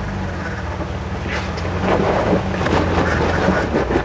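Jeep Wrangler engine running at low revs as it crawls over rocks. From about a second in, there is irregular crunching and scraping of the tyres on rock and gravel.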